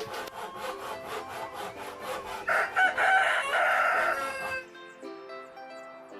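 Hand saw cutting wood in quick, even strokes, with a rooster crowing loudly over it about two and a half seconds in. The sawing stops after the crow, leaving soft background music near the end.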